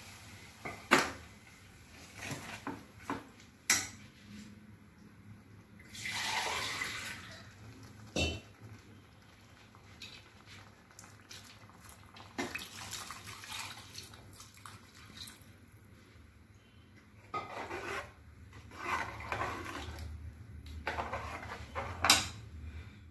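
Steel ladle stirring a kurma in an aluminium pressure cooker: scraping and clinking against the pot, with a few sharp knocks, the loudest near the start and near the end. About six seconds in, a short rush of liquid as it is poured into the pot.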